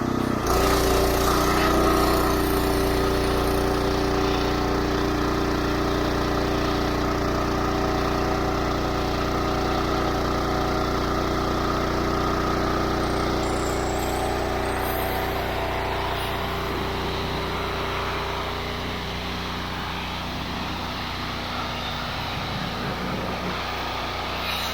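Pressure washer's small engine running steadily under load, with the hiss of the water spray coming in about half a second in.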